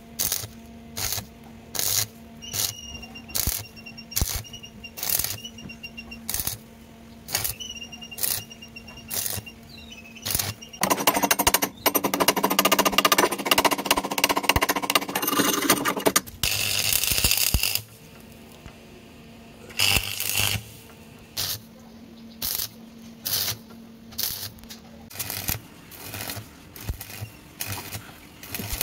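Repair work on the rusted steel chassis of a 1980 Vespa PX150: stick arc welding and chipping or brushing the fresh weld. Sharp knocks repeat about once a second, with a dense, continuous crackling and scraping stretch of about five seconds near the middle.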